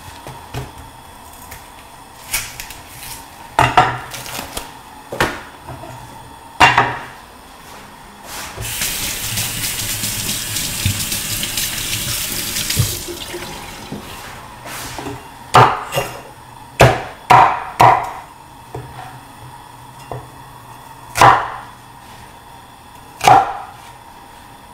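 A few scattered knocks, then a kitchen tap runs for about four seconds. After that come single sharp knocks, a Chinese cleaver chopping on a wooden cutting board, about a second or more apart.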